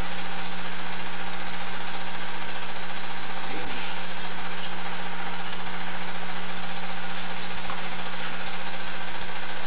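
Super 8 film projector running: a steady motor hum and whirr over an even hiss.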